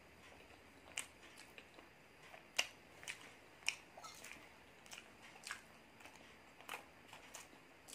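Close-miked eating: chewing with irregular sharp clicks and smacks, one or two a second, the loudest about two and a half and three and a half seconds in.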